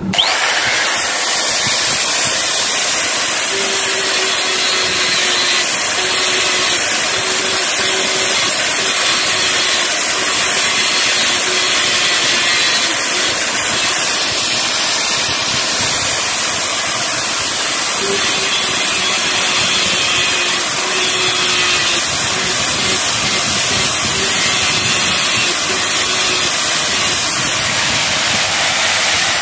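Handheld angle grinder running steadily, its disc grinding the metal sides of a drum brake shoe clean: a harsh, even grinding hiss with a faint motor whine underneath.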